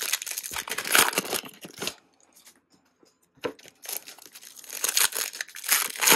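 Foil wrappers of Bowman baseball card packs being torn open and crinkled by hand. It comes in two bouts: one in the first two seconds, and another from about three and a half seconds in that is loudest near the end.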